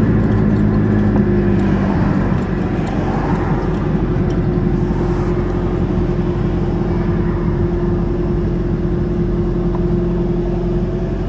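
Car engine and road noise while driving: a steady drone with a constant low hum, from a wagon towing a loaded trailer.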